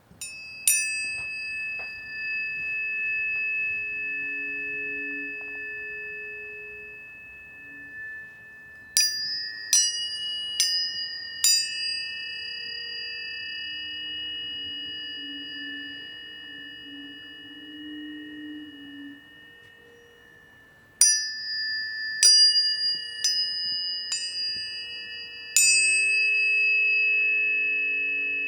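Planetary tuning forks struck in three clusters of several strikes, each strike starting with a bright clang that gives way to clear, pure tones. Several pitches overlap, ringing on and slowly fading between the clusters.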